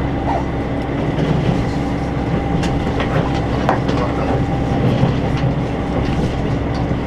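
Super Hakuto diesel limited express heard from inside the passenger car while running: a steady rumble of wheels on rail under a faint constant hum, with a few sharp clicks from the wheels on the track.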